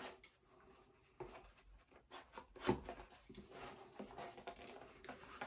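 Faint rustling and a few soft taps of hands handling things on a desk.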